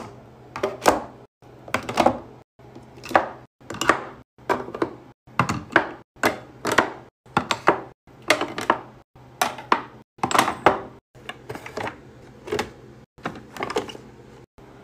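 Skincare jars and dropper bottles set down one after another into clear plastic organizer bins: a quick run of sharp clicks and knocks of glass and plastic on plastic, often in pairs, about one or two a second, each run cut off abruptly.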